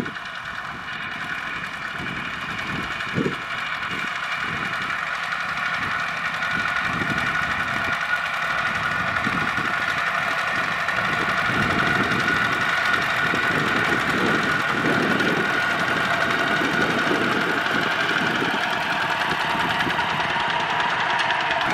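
Single-cylinder diesel engines of Kubota RT walk-behind tractors running steadily under plowing load, a steady drone that grows louder over the first dozen seconds. A sharp knock comes about three seconds in.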